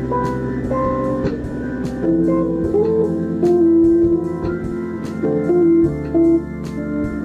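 Instrumental music: a guitar plays a melody of held, bending notes over keyboard chords and a bass line, with light percussion ticks keeping time.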